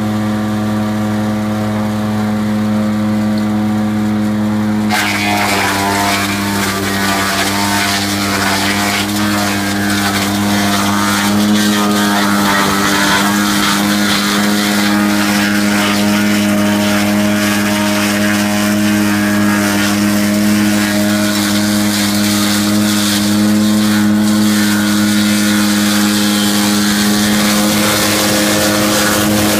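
Caravaggi CIPPO 7 compact branch chipper with its engine running at a steady speed; about five seconds in, branches start going through the cutter and a loud crackling chipping noise joins the engine and goes on, rising and falling as more wood is fed.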